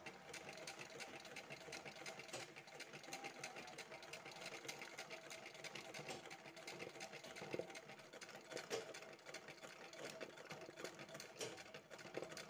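Sewing machine running steadily, its needle stitching fast with a rapid, even ticking as it fills an embroidery design in hooped cloth.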